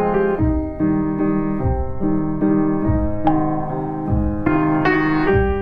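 Background piano music: held chords and melody notes that change every half-second or so, over low bass notes about once a second.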